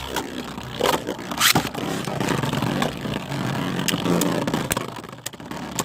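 Two beyblades, one 3D-printed, spinning against each other in a stadium: a steady whirring scrape of the tips on the floor, broken by repeated sharp clacks as they collide.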